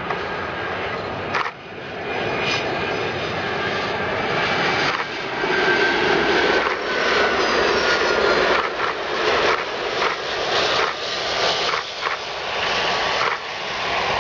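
Boeing 757 jet airliner landing and passing close by: its engines roar and whine, growing louder about five seconds in, with whining tones that fall in pitch, then rumble on as it rolls down the runway.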